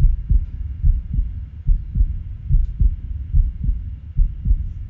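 Auscultated heart sounds with a fixed split second heart sound: the S2 of every beat is heard as two close components and does not change with breathing. The low thuds repeat in a steady rhythm.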